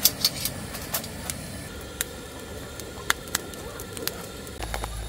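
Charcoal briquettes crackling and popping irregularly in a metal chimney starter as they catch, heated from below by a gas burner whose flame hisses steadily. A low rumble comes in near the end.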